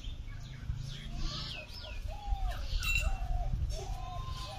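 Birds calling: quick high chirps, then from about two seconds in a run of short, slightly arched mid-pitched notes, over a low background rumble.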